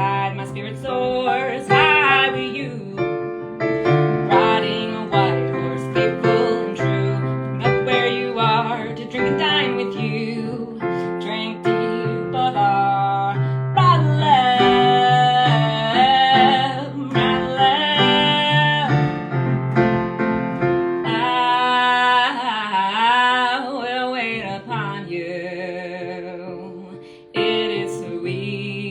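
Worship music: piano-style keyboard chords played under a singing voice that holds long, wavering notes through the middle stretch. The music drops away briefly near the end, then comes back in.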